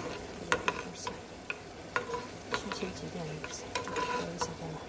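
Pine nuts frying in oil in a non-stick pan, stirred with a slotted metal spoon: a faint sizzle with irregular clicks and scrapes of the spoon against the pan.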